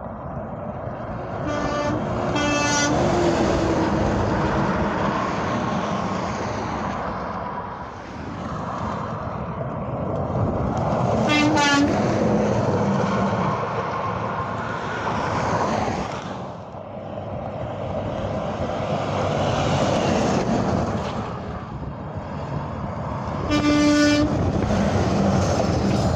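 Highway traffic passing in waves, with short truck horn blasts: two quick toots about two seconds in, a brief one about halfway, and another near the end.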